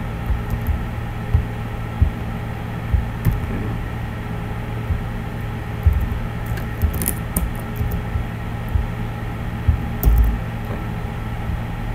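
Scattered clicks of a computer keyboard and mouse during code editing, over a steady low hum.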